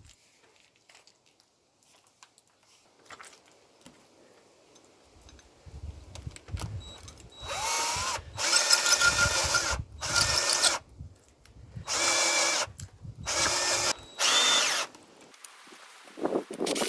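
Power drill driving long screws through flat-iron brackets into a wooden anvil stump: after some quiet handling, about six short runs of the motor whine, each a second or so, starting about halfway through.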